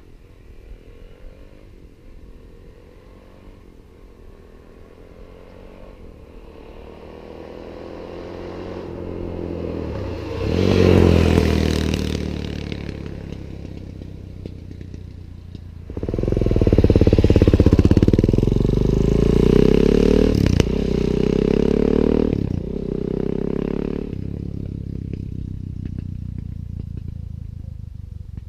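Suzuki DR-Z400S single-cylinder dirt bike with an aftermarket Higashi exhaust riding past. The sound builds to a first loud pass about eleven seconds in. A louder hard acceleration follows from about sixteen seconds, with two gear changes, then fades away near the end.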